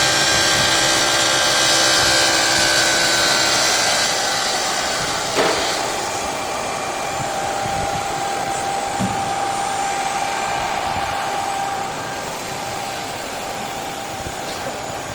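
Blue Elephant ES4-3620 CNC bridge saw running, a steady machine whir and hiss with a few held tones. It gets quieter about four seconds in and again near twelve seconds, with a single knock about five seconds in.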